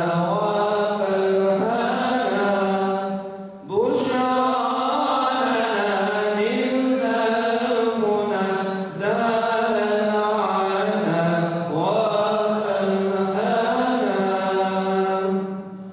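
Unaccompanied Islamic devotional chant sung by a group of male voices, a low held note under a slow, winding melody. The singers break briefly for breath a few seconds in, and the chant fades out at the very end.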